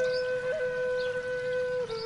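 Seruling bamboo flute playing one long held note with a quick ornament early on, stepping down to a lower note near the end. Faint bird chirps sound behind it.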